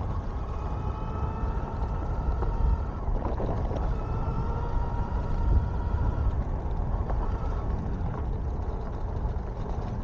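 Electric bike ridden fast over a rough dirt trail: a steady motor whine over a heavy low rumble of wind and tyres, with a few sharp knocks from bumps.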